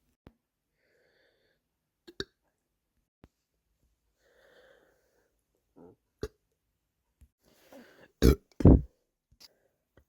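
A person burping from a bloated stomach after overeating, which eases their nausea. A few small burps come first, then two short loud burps in quick succession near the end, with soft breathing between.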